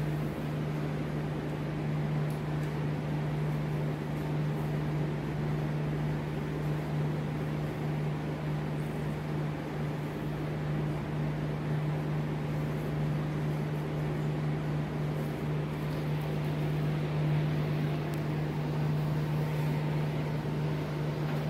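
Steady low machine hum: one constant low tone over an even hiss, unchanging throughout.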